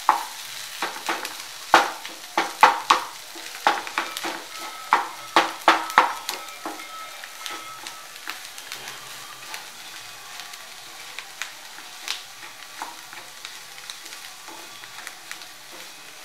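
Spatula scraping and tapping in a non-stick pan as potato and pea filling is stirred over the heat, with a faint steady sizzle underneath. The strokes come quickly at first and thin out in the second half.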